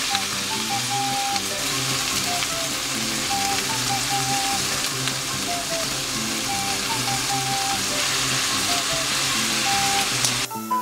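Chicken breast and lettuce sizzling as they stir-fry in a frying pan, a steady sizzle that cuts off suddenly near the end. Background music plays underneath.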